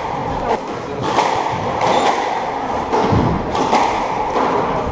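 Squash rally: the ball cracks off rackets and the court walls in sharp knocks roughly once a second, with a heavier thud about 3 seconds in. Shoes squeak briefly on the wooden floor about 2 seconds in.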